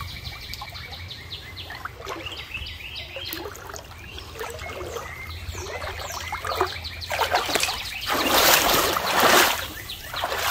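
Footsteps wading and splashing through shallow creek water, starting about seven seconds in and loudest for a second or two near the end. Before that, small birds chirping over water trickling.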